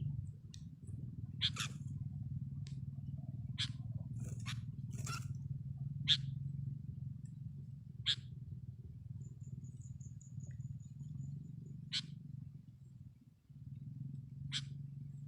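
Short sharp bird calls, one every second or two, over a steady low hum, with a faint high rapid trill near the middle.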